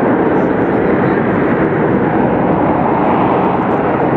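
Harrier jump jet hovering, its Pegasus vectored-thrust turbofan running at high power with a loud, steady jet noise.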